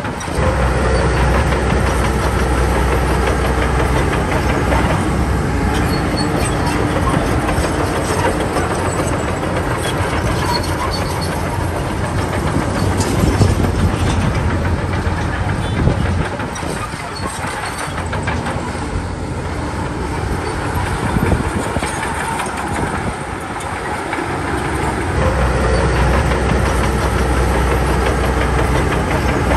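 Shantui DH17B2 bulldozer at work: its diesel engine running under load with steel crawler tracks clattering. The engine note eases off a little past halfway, then picks up again near the end.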